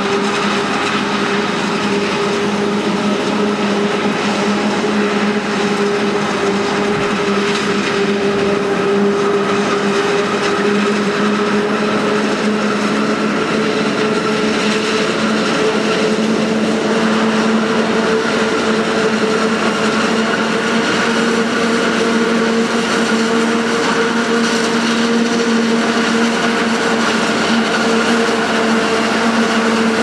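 Claas Jaguar forage harvester chopping maize, with a tractor and silage wagon running alongside: a steady, unbroken machine drone with a constant whine over it.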